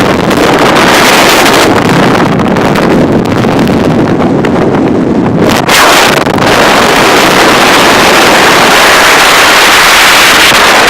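Loud wind noise rushing over the microphone, mixed with the road noise of a moving car, with a brief lull about six seconds in.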